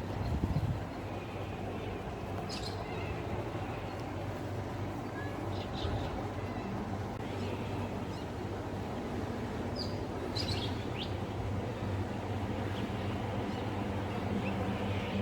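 Steady low drone of a motorboat's engine, with a few short bird chirps over it.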